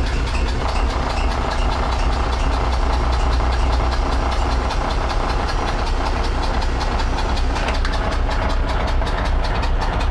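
Lifeboat's small diesel engine running steadily with a rapid, even knocking beat, just started from cold after glow-plug preheating.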